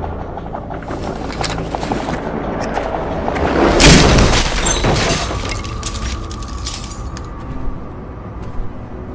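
Film score with a swelling rush that peaks in a loud boom about four seconds in, then dies away under a held tone.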